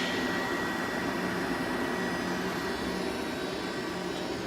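Steady mechanical hum with a thin, constant high whine from machinery running in a machine shop.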